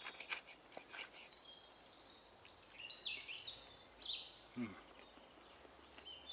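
Small songbird singing short phrases of quick falling high notes, with a few light clicks of a knife and fork against a wooden bowl in the first second. A brief low sound about two-thirds of the way in is the loudest moment.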